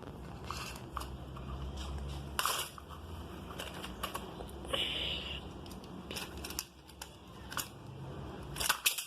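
Plastic toy cars and playset pieces being handled: scattered small clicks, knocks and clatters with rubbing handling noise, and a short hiss about five seconds in.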